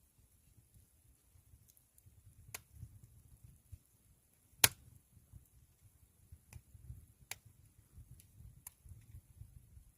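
Wood fire burning in a traditional Korean firebox, crackling with scattered sharp pops at irregular intervals, one much louder snap about halfway through, over a faint low rumble.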